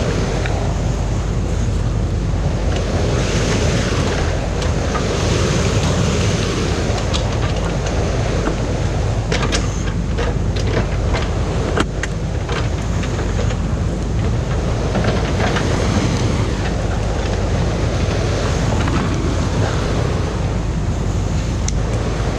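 Stream water pouring over a small concrete weir in a steady, loud rush. About ten seconds in come a few short knocks and scrapes from a rake's metal tines working among the stones and debris in the water.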